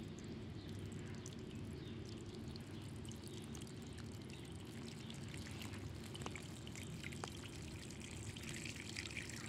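Water trickling steadily, with faint scattered ticks; the sound turns brighter and more hissing near the end.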